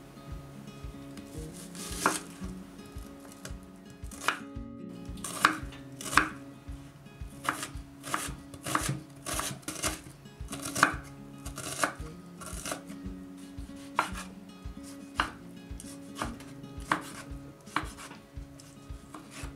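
A kitchen knife chopping onion and tomato on a wooden cutting board: sharp knocks of the blade striking the board, irregular, about one a second and sometimes two close together.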